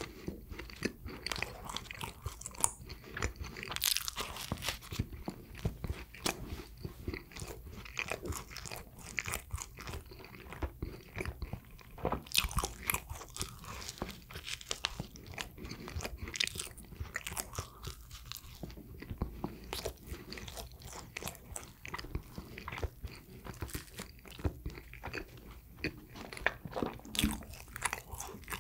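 A person biting and chewing soft sweet bread, eating sounds with a dense run of small wet clicks and smacks and no pause.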